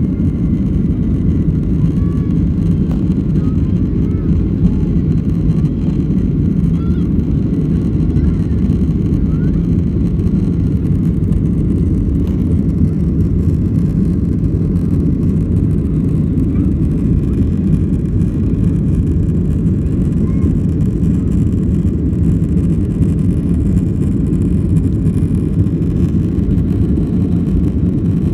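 Inside the cabin of a Boeing 737-900 at takeoff: its CFM56 turbofan engines at takeoff power make a loud, steady low rumble through the end of the takeoff roll, the lift-off and the start of the climb.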